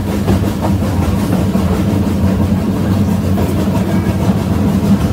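Steady low mechanical hum with a constant deep drone, like machinery or an engine running at idle.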